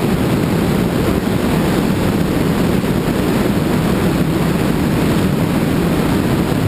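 Steady wind buffeting on the microphone of a camera riding on a moving motorcycle, mixed with road noise, dull and low with no changes in pace.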